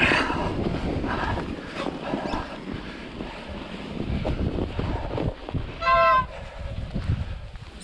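Wind buffeting the microphone over the rumble of a bicycle rolling through snow, with one short, loud, pitched call about six seconds in.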